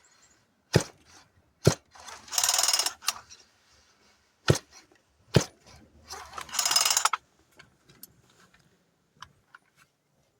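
Cub Cadet CS552 chainsaw being handled: four sharp mechanical clicks in two pairs, each pair followed by a short ratcheting whir.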